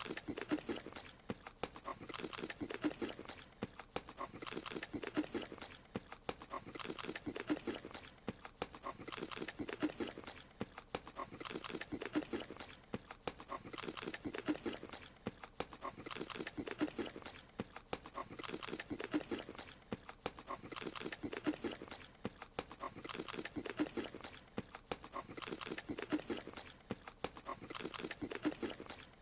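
Cartoon creature's eating sound effect: a quick run of chomping, smacking clicks that repeats in a loop about every two seconds.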